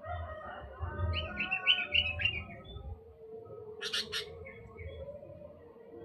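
Sooty-headed bulbul (kutilang) calling: a quick bubbling phrase of several warbled notes about a second in, then two short, sharp calls around four seconds in.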